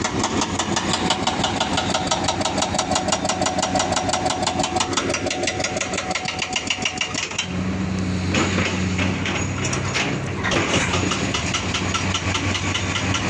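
Excavator's diesel engine running, with a fast, even clatter for about the first half, then a steadier low hum broken by a couple of short knocks.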